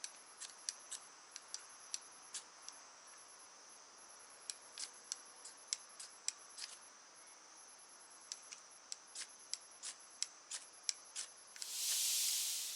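Insects chirring steadily at a high pitch, with wood crackling and popping in a campfire at irregular intervals. A short rush of noise comes in near the end.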